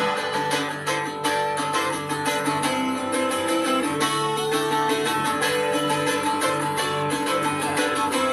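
Solo mandolin strummed in a fast, steady rhythm, an instrumental break in a song with no singing.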